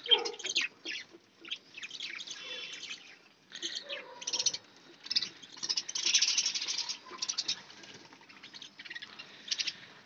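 Several budgerigars chirping and chattering in a cage, a busy run of short, high calls.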